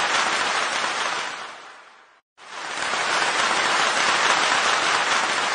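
Steady applause that fades out about two seconds in, then swells back up about half a second later.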